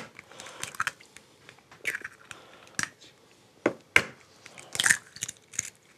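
Eggs being cracked and their shells pulled apart over a mixing bowl: a scattering of sharp cracks and crunches of eggshell, loudest about four seconds in.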